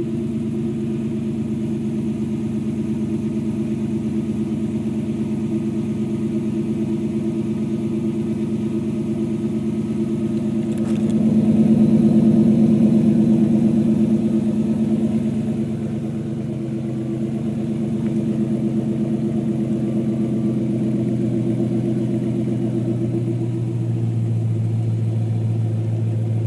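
Car engine idling through an aftermarket cat-back exhaust just after start-up, heard at the tailpipe. The exhaust note is steady, gets louder for a few seconds around the middle, then settles back to idle.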